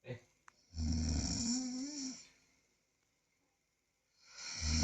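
A person snoring: one long snore of about a second and a half, a pause of about two seconds, then the next snore starting near the end.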